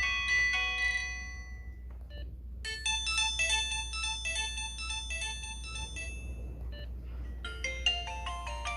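Samsung SGH-T629 mobile phone playing its polyphonic ringtones one after another. One melody fades out in the first two seconds, a new tune of quick short notes starts a moment later, and another ringtone begins near the end.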